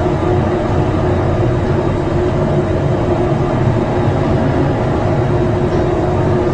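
Steady mechanical drone with a low hum and a couple of steady tones through it, unchanging throughout.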